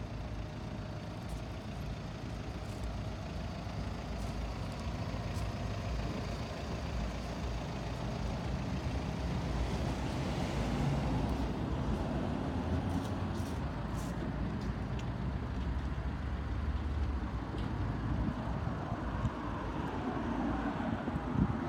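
Steady low rumble of motor vehicle noise, growing a little louder about halfway through.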